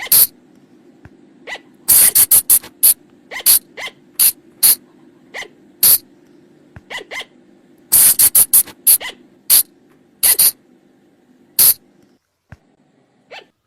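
Sunda flying lemur (colugo) calls: short, sharp, very high-pitched squeaks, some single and some in quick runs of several, over a low steady hum that cuts off near the end.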